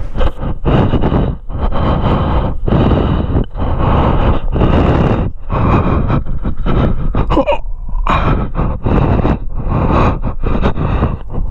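A hiker breathing hard close to the microphone while climbing, a rough breath about once a second with rumbling mic noise, and a short grunt about two-thirds of the way through.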